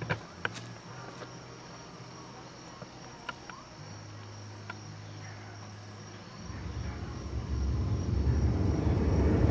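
Outdoor summer ambience of crickets chirring steadily, with a few soft footsteps in the first second. After about six and a half seconds a low, ominous drone from the film score swells steadily louder.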